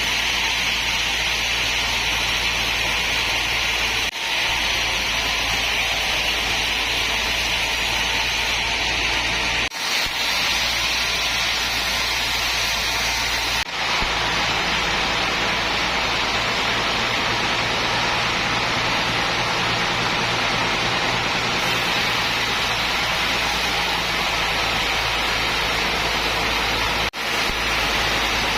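Sawmill machinery running steadily: a constant hiss over a low motor hum, with a few brief dropouts and a slight change in the hum about fourteen seconds in.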